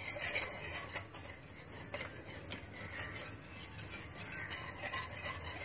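A metal whisk stirring a thin gram-flour mixture in a steel pot, with faint swishing and scattered light clinks against the pot. The mixture is being stirred fast to keep the flour from forming lumps.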